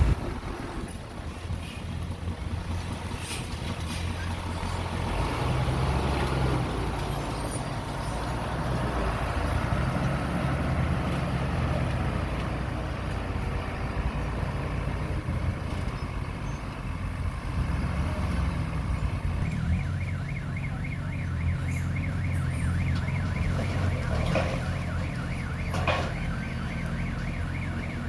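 Diesel engine of heavy earthmoving equipment running steadily under work. Past the middle, a rapid, evenly repeating high-pitched pulsing joins in, and two sharp metallic knocks come near the end.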